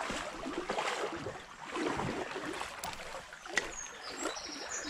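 Shallow stream water sloshing and rippling in uneven surges around a wading angler's legs, with a couple of light clicks past the middle.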